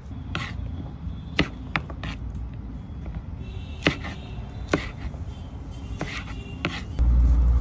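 A kitchen knife chops through okra pods onto a wooden cutting board, making sharp knocks every second or so with short pauses between them. Near the end a loud, steady low rumble cuts in abruptly.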